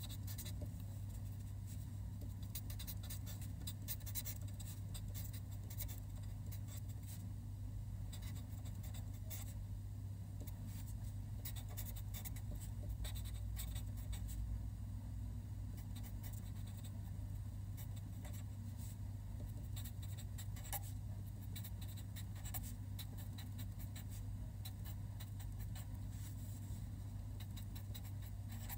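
Black marker pen writing by hand on a sheet of paper: a steady run of short pen strokes and taps on the page, over a steady low hum.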